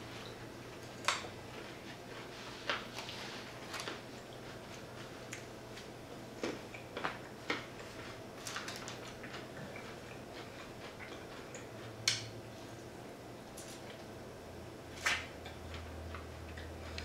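Eating sounds: scattered short crunches and mouth clicks of someone chewing fried corn, a dozen or so spread out, over a faint steady hum.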